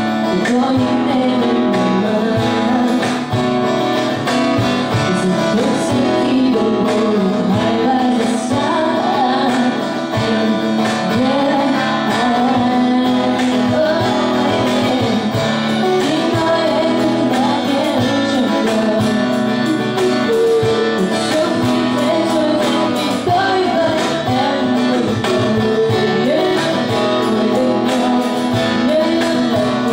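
A woman singing live into a handheld microphone, accompanied by acoustic guitar.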